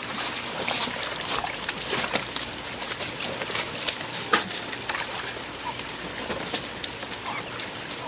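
Brown pelicans jostling and feeding at a tub of water, their bills splashing in it and clattering, with many short sharp clicks.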